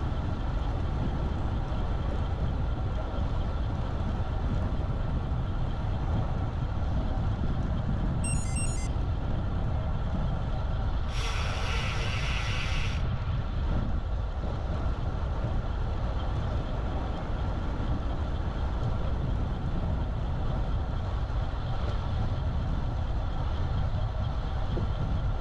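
Steady wind and road rumble on a bike-mounted action camera's microphone while cycling. About eight seconds in comes a brief rapid trill of high-pitched beeps or rings, and a few seconds later a sharp hiss lasting about two seconds.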